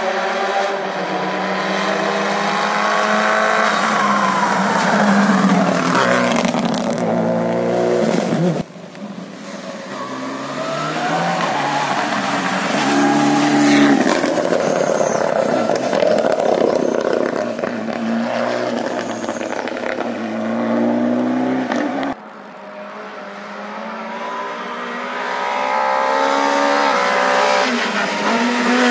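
Rally cars at full speed on a tarmac special stage. Their engines rev hard and rise and fall through gear changes as they come past. The sound cuts off abruptly twice, between passes.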